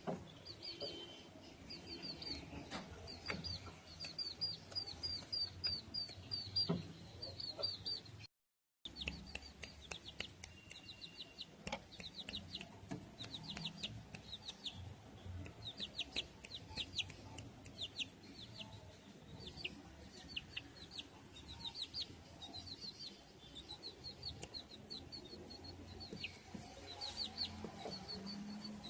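Serama bantam chickens calling, a steady run of short, high-pitched clucks and peeps repeated in quick series, with a brief silent break about eight seconds in.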